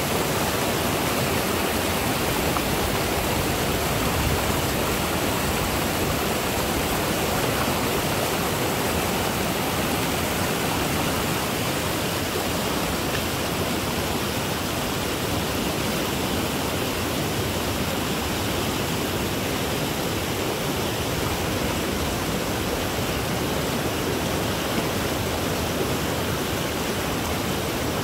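Floodwater of a rain-swollen creek rushing steadily over rapids, an even wash of fast-moving water.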